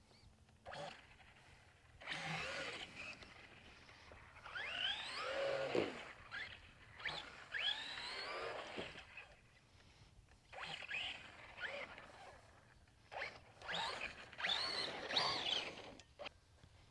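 Traxxas Rustler RC truck's electric motor whining up and down through about five bursts of throttle, with dirt and gravel noise from the tyres and short pauses between runs.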